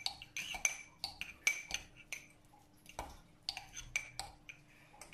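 Metal spoon stirring a thick coconut-oil and baking-powder paste in a small glass jar, clinking and scraping against the glass in irregular runs of quick taps with a short glassy ring.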